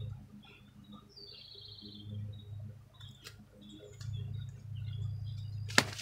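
Birds chirp and trill in the background. Near the end comes a sharp snap, followed by rustling, as an ear of sweet corn is broken off its stalk among the leaves.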